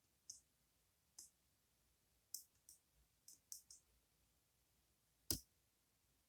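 Faint, small metallic clicks of a lock pick working the pin stacks of a Goal Z pin-tumbler lock with spool pins, scattered irregularly, with one sharper click a little over five seconds in.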